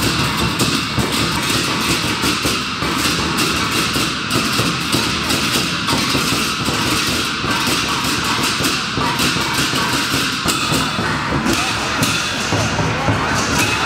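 Many pairs of large hand cymbals clashing in a dense, continuous din with a big drum beating underneath: a shehuo gong-and-drum band playing.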